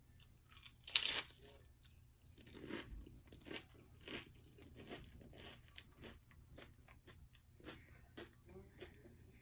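A loud crunching bite into Doritos nacho chips about a second in, then steady crunchy chewing, about two crunches a second.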